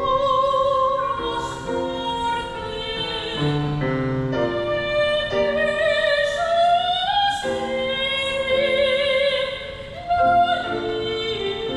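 A singer in a high operatic voice, with strong vibrato, sings sustained phrases over piano accompaniment.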